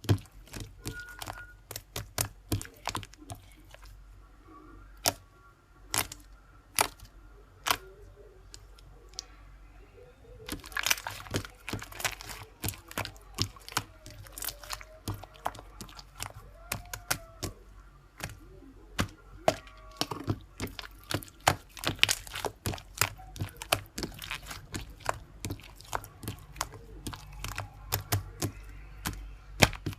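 Many irregular sharp clicks, taps and knocks, as of small objects being handled, coming thicker from about eleven seconds in.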